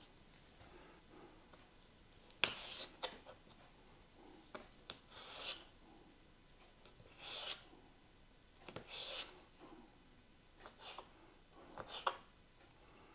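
Knife cutting boiled potatoes on a cutting board: scattered sharp clicks of the blade striking the board and a few short scraping swishes.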